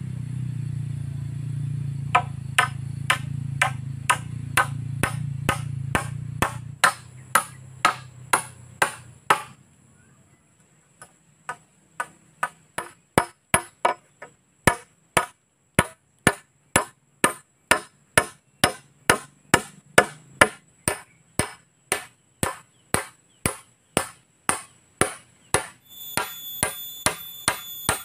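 A nail being driven into a wooden pole joint with the back of a small hatchet: sharp, ringing blows at about two a second, with a short pause about ten seconds in. A low steady hum underlies the first several seconds, and a steady high whine sets in near the end.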